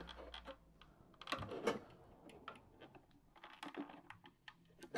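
Flathead screwdriver prying at a stubborn plastic manifold clip on a Saeco espresso machine's plastic water tank: faint, irregular plastic clicks and short scrapes.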